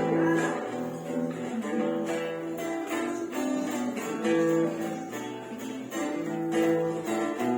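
Acoustic guitar strumming a chord introduction to a folk song.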